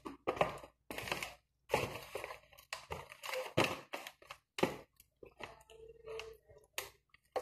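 Close-up chewing and crunching of crispy fried chicken, in quick irregular bites.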